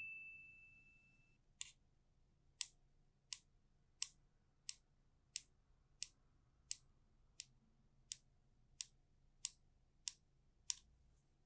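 Scissors blades snapping shut in an even rhythm of about fourteen sharp clicks, roughly one and a half a second, used as a Foley imitation of a clock's tick-tock.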